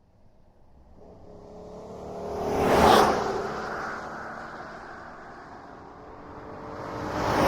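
Jeep Grand Cherokee SUV driving past, growing to its loudest about three seconds in and then fading, with the engine tone dropping in pitch as it goes by. Near the end a second pass comes up and grows loud again.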